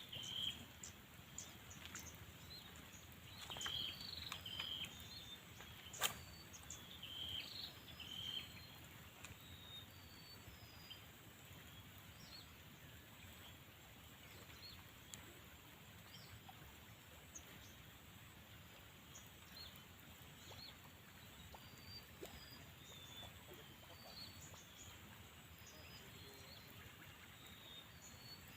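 Faint, scattered short bird chirps over a quiet background hiss, with a sharp click about six seconds in.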